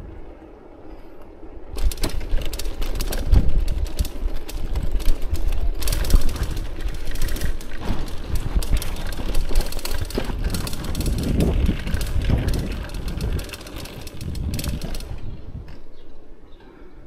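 Steady jolting rattle of wheels rolling over a cobblestone street. It starts about two seconds in and eases off near the end as the ride reaches smooth asphalt.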